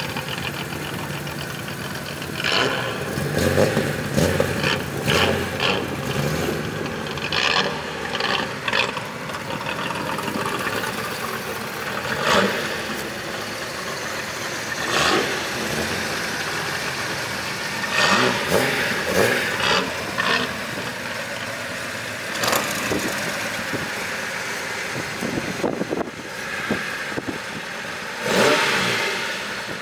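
Classic Nissan car engines running, with repeated short revs and throttle blips rising above the idle.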